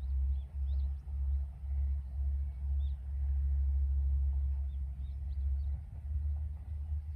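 A low, uneven rumble that swells and dips, with small birds chirping faintly.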